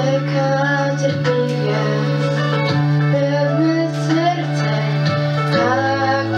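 Young girls singing a Christmas song over an instrumental backing track, the lead sung into a microphone. Steady held bass notes change to a new chord about five and a half seconds in.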